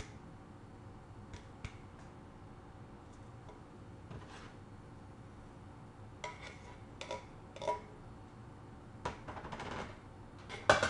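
Scattered light clicks and knocks of a tin can and a plastic mixing bowl being handled as canned fruit cocktail is emptied into the bowl, coming more often in the second half, with one louder knock near the end.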